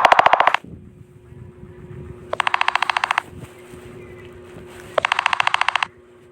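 Smartphone ringtone made of fast pulsing trills: one burst ends about half a second in, then two more bursts of just under a second each ring about two and a half seconds apart, over a faint steady hum.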